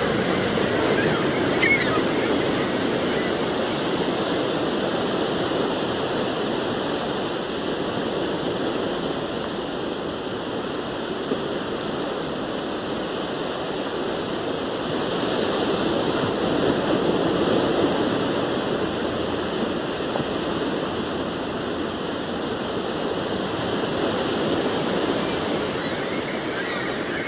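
Sea surf washing onto a beach as a steady rushing noise that swells about halfway through. A faint bird call comes about two seconds in.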